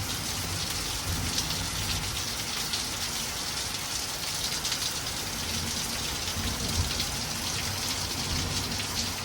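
Heavy rain falling steadily, pattering on the ground and on hard surfaces.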